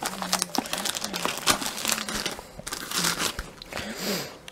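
Packaging of a new compact camera crinkling and rustling as it is pulled out of the box and unwrapped, in a quick run of crackles with a longer rustle near the end.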